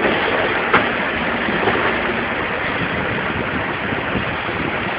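Steady street noise with a vehicle engine running, and a sharp knock under a second in.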